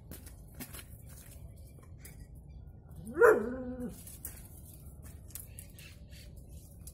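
A dog gives one loud, drawn-out bark about three seconds in, its pitch rising and then held briefly.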